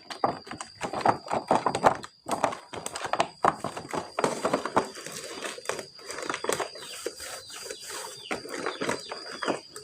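Rapid, irregular clicking and clattering of hard objects being handled. Short falling squeaks join in during the second half.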